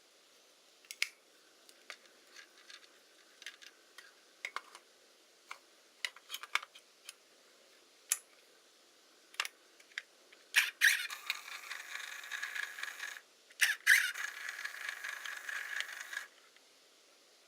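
Handling clicks on a Hasselblad Winder CW, then its motor drive runs twice, each run about two and a half seconds with a steady whine, with a short pause between.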